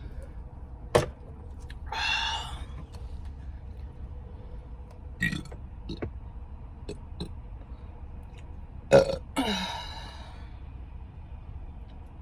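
A woman burping twice, once about two seconds in and again around nine to ten seconds in, between short sharp clicks while she eats. A steady low rumble runs underneath.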